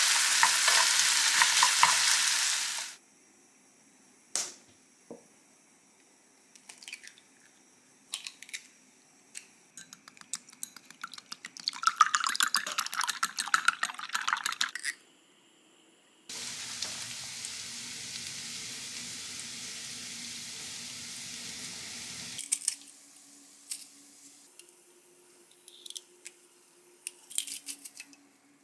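Diced meat and vegetables sizzling in a frying pan as they are stirred, cutting off suddenly about three seconds in. Later, eggs are beaten briskly in a glass bowl for about three seconds, followed by a steady hiss lasting about six seconds and a few clicks near the end.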